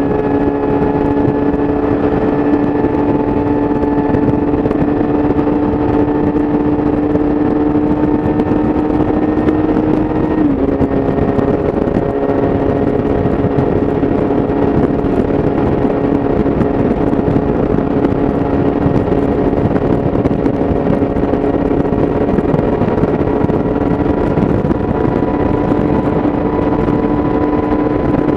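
A 2017 Yamaha YZF-R6's inline-four running at steady high revs through an Akrapovic exhaust while riding on the highway. The engine note creeps slowly higher, dips briefly about ten seconds in, then holds steady.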